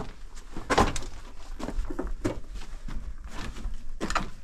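Footsteps on loose rock and gravel, an irregular run of crunches and knocks with a sharper knock about a second in.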